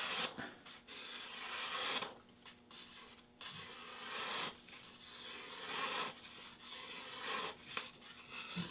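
Freshly sharpened Mora Bushcraft Black carbon-steel knife slicing through a held sheet of paper in several strokes, each a short scraping swell of blade on paper. This is a paper-cutting test of the edge's sharpness.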